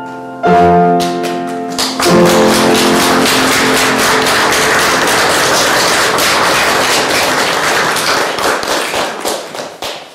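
Grand piano playing the closing chords of a romance, then an audience applauding, the clapping thinning out and dying away near the end.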